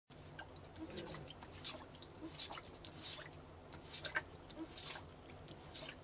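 An American shorthair cat lapping water from a sink basin: quick, irregular wet clicks of its tongue, a few a second.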